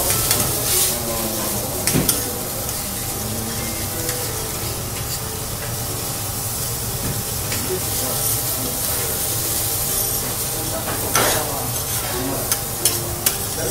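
Wagyu beef cubes and bean sprouts sizzling steadily on a hot teppanyaki griddle. A few sharp clicks and scrapes of metal spatulas on the steel plate come about two seconds in and again near the end.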